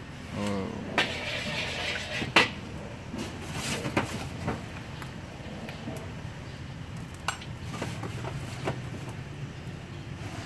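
Scattered clinks and knocks of a metal spatula and utensils against a wok and dishes, over a steady low rumble.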